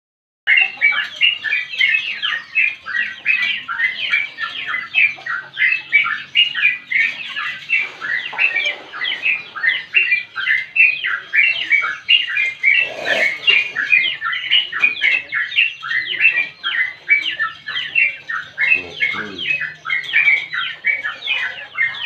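Yellow-vented bulbul (trucukan) singing a long, unbroken run of quick, bubbling chattering notes, the rambling 'ngropel' song. It starts about half a second in.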